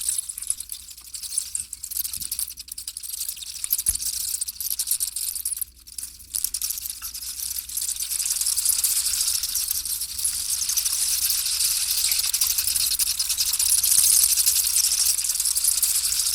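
Vampire bats screeching: a dense, continuous high-pitched chittering of many rapid overlapping squeaks, thinning briefly about six seconds in.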